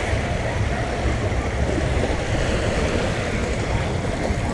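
Steady wind noise buffeting the microphone, mixed with small waves lapping at the shoreline.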